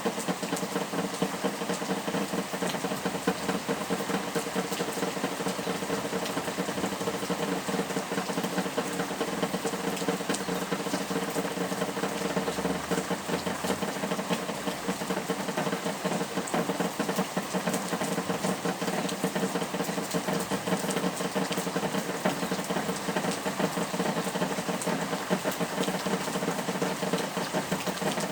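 Steady rain falling, a dense, even patter of many drops that keeps on without a break.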